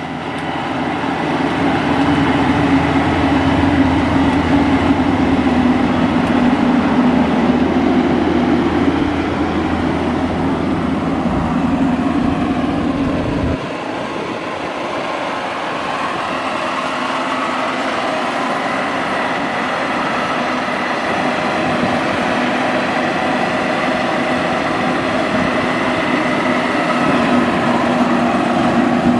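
Maxxi Bimo 102L crawler rice combine harvester's engine running steadily. About halfway through, the sound changes abruptly and its deep rumble drops away.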